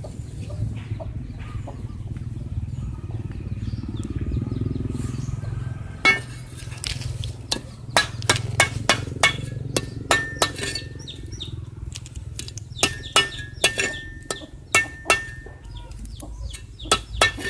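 Metal cleaver chopping whole fish on a chopping board: sharp knocks, one at a time and then in quick clusters, starting about six seconds in, over a low steady rumble.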